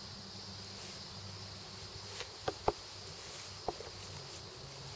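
Crickets and other insects trilling steadily, with a few light clicks and knocks around the middle.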